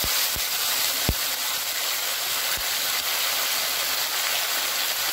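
Ground spice pastes sizzling in hot mustard oil with cumin seeds in a kadai: a steady frying hiss with a few sharp pops, mostly in the first second or so.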